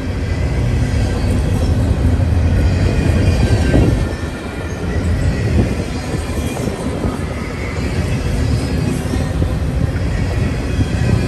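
Freight train of tall open-top cars rolling past close by: a steady rumble of wheels on rail, with a faint high squeal from the wheels.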